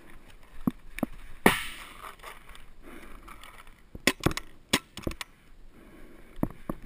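Paintball markers firing: scattered sharp pops, single ones in the first second and a half, the loudest about one and a half seconds in, then a quick cluster of four or five around four to five seconds in and two more near the end.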